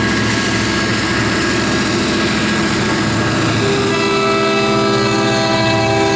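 Two EMD SD40-2T diesel-electric locomotives working at full throttle (notch 8), their turbocharged 16-cylinder 645 engines running with a loud, steady drone. About two-thirds of the way in, a set of higher steady tones joins the sound.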